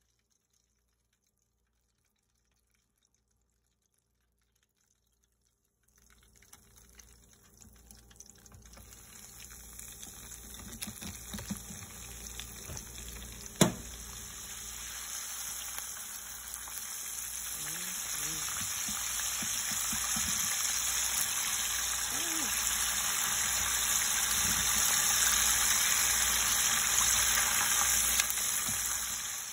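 Near silence at first. After about six seconds, oil in a deep fryer starts sizzling around a flour-coated chicken drumstick, growing steadily louder and easing off a little near the end, with one sharp click partway through.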